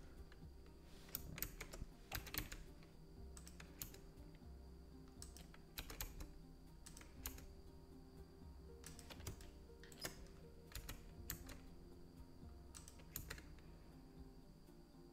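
Computer keyboard keys clicking in faint, irregular strokes: shortcut presses for repeated extrude-and-scale steps in Blender.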